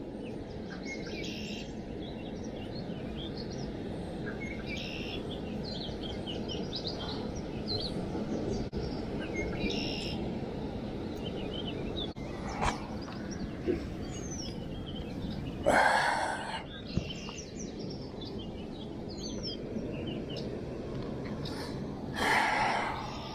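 Small birds chirping and twittering in many short, high calls over a steady low background rush. Two brief, louder rustling noises come about two-thirds of the way through and near the end.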